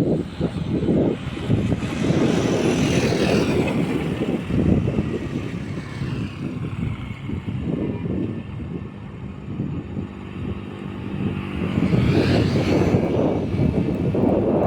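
Heavy road traffic passing close: a deep engine rumble with tyre and wind noise that swells as vehicles go past, loudest about two to four seconds in and again near the end.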